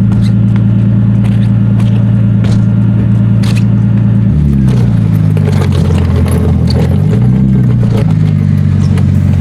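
Nissan Skyline R32 GTS-t's RB20DET turbocharged straight-six running steadily, then about four seconds in its note shifts and rises and falls as the car is driven in reverse.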